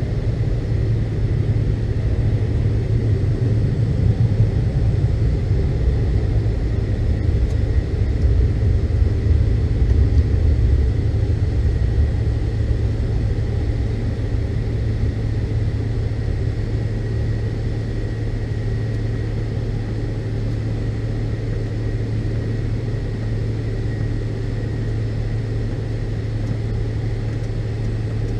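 Cabin noise of an MD-82 jetliner under engine power, its rear-mounted Pratt & Whitney JT8D turbofans giving a loud, steady drone. A rougher low rumble under the drone is heavier in the first dozen seconds, then eases and the sound stays even.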